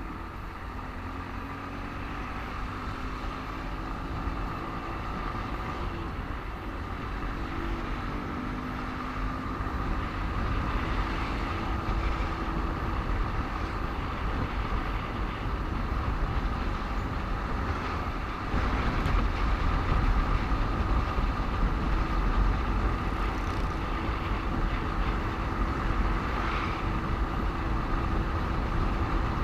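Motorcycle engine running steadily while riding in slow traffic, with wind rumbling on the microphone; the overall sound grows gradually louder.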